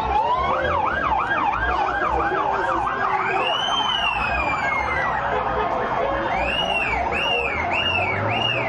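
Police vehicle siren changing modes: a fast yelp of about four sweeps a second, then about three seconds in one long rising and falling wail, then from about six seconds a slower whoop of about two sweeps a second. Crowd chatter runs underneath.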